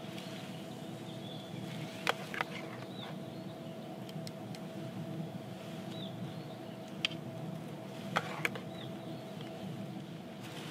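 A few sharp clicks of utensils against cookware over a steady low background, with a bird giving short chirps every few seconds.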